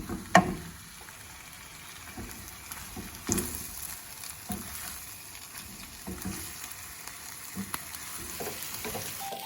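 Minced beef and mushrooms sizzling in a frying pan as they are stirred, with the spatula scraping and knocking against the pan now and then.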